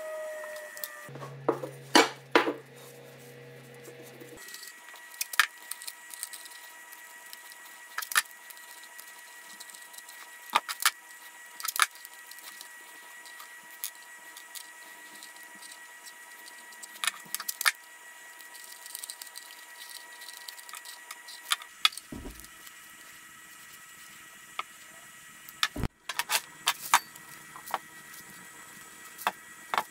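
Scattered light clicks, taps and metal clinks of tools and parts being handled at a workbench, over a faint steady high hum.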